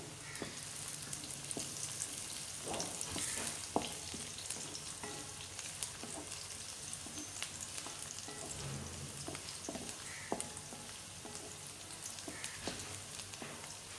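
Sliced onions sizzling and crackling in hot ghee in a kadhai, still frying towards golden, with a spatula stirring and scraping against the pan now and then.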